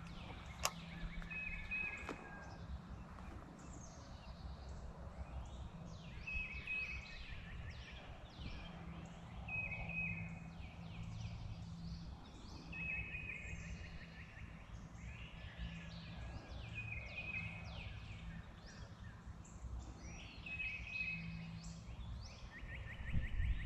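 Songbirds singing by a creek. One bird repeats a short phrase of quick downward-sweeping notes and a brief trill every three to four seconds, over a steady low background hum. There is a sharp click less than a second in.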